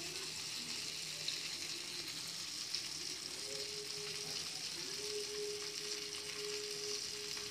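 Neiparai fish steaks shallow-frying in oil in a pan, a steady sizzle. A faint steady tone comes in about three seconds in and holds.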